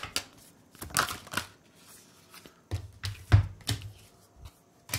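Tarot cards being shuffled by hand, with short scratchy riffles of card stock, then a few dull knocks around the middle as the deck is knocked against the wooden tabletop.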